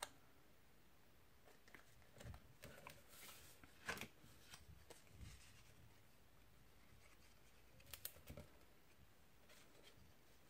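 Near silence with faint paper rustles and a few light taps as small pieces of card stock are handled and pressed in place; the sharpest tap comes about four seconds in, and a short cluster follows about eight seconds in.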